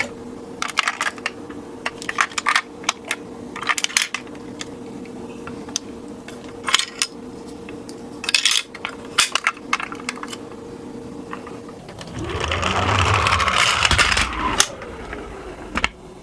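Toy minicars clicking and clattering as they are handled and set on a slope. About twelve seconds in, a toy car rolls down the slope with a rising rumble for about two and a half seconds and ends in a sharp knock.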